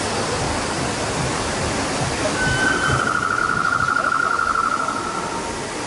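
Steady rushing ambience like running water. About two and a half seconds in, a pulsing, slightly falling trill starts over it and lasts about three seconds.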